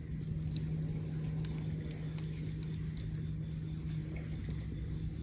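Wood campfire burning in a metal fire ring, crackling with scattered sharp pops, over a steady low hum.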